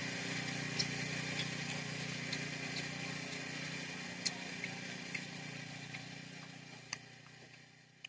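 Small engine of a walk-behind rice reaper running steadily as it cuts ripe paddy, with occasional sharp ticks, fading away toward the end.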